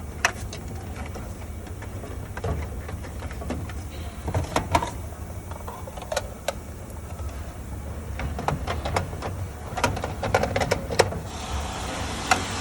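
Scattered clicks and knocks of parts being handled inside a vending machine as wiring is pushed behind the bill validator casing and the bill stacker is fitted back on, with a quick run of clicks about ten seconds in. A steady low hum runs underneath.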